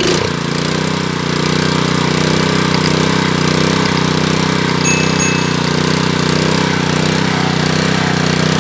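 Honda GX160 single-cylinder petrol engine picks up speed right at the start, then runs steadily at a raised speed. Its carburettor, just cleaned, is set to the richest mixture, and the engine is being left to run to clear deposits from the combustion chamber.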